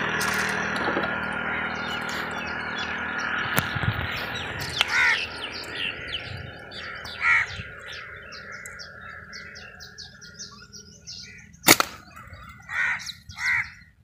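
Birds in the tree giving several short harsh calls, over a steady low hum that fades away during the first half. One sharp snap rings out about twelve seconds in.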